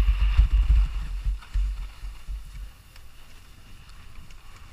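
Wind buffeting a GoPro's microphone during a ski descent, over the hiss and scrape of skis on packed snow. The low buffeting is heavy for the first two or so seconds, then eases.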